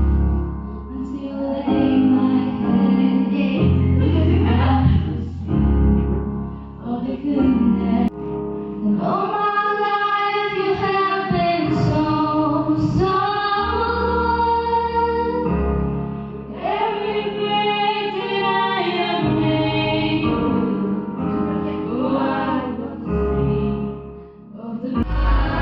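Music: a song with a woman's singing voice holding long notes over deep bass notes that change every couple of seconds.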